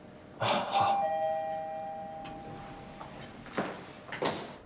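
Elevator arrival chime: two bell-like tones, the second a step lower than the first, ringing out and fading over about two seconds. Two footsteps on a hard floor follow near the end.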